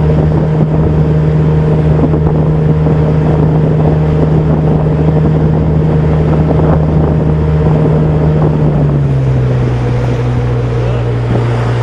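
Johnson 40 hp VRO two-stroke outboard driving a pontoon boat, running steadily under way; its note drops a little about nine seconds in as it slows slightly. The motor is running well.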